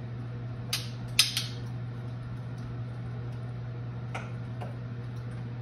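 A few light clicks and clinks of dishes or utensils handled on a kitchen counter, two close together about a second in and two more near the end, over a steady low hum.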